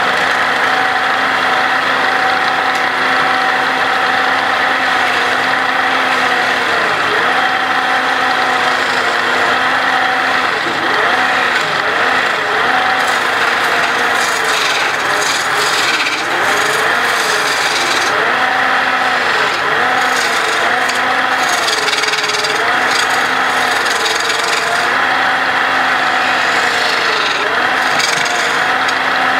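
Wood lathe running while a hand turning chisel cuts into a spinning wooden sofa-leg blank: a steady motor hum under a continuous scraping hiss of steel on wood. The pitch of the cut wavers as the tool moves along the work.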